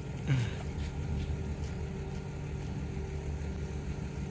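A vehicle engine idling with a steady low hum. About a third of a second in, a short loud squeal glides downward in pitch.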